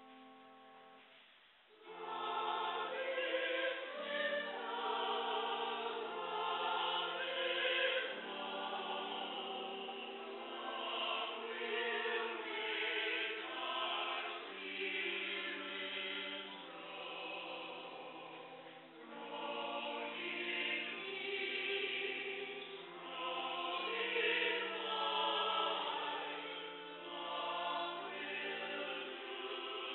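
Church choir singing in several parts with cello accompaniment, the cello holding long low notes beneath the voices. It opens softly and the full choir comes in about two seconds in.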